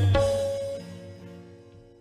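Worship-song backing music: a last full hit with drums that rings out and fades over the next second or so, leaving soft held notes.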